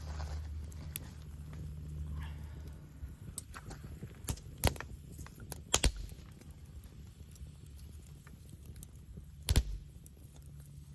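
Wood campfire crackling, with sharp pops of burning wood, a cluster around the middle and a loud one near the end, over a low steady rumble.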